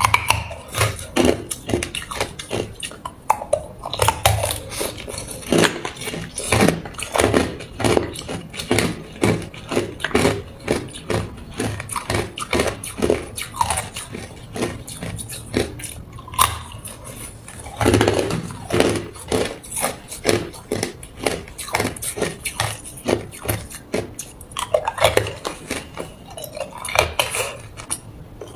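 Hard ice being bitten and chewed: a dense run of sharp crunches and cracks, several a second, in clusters with short pauses between.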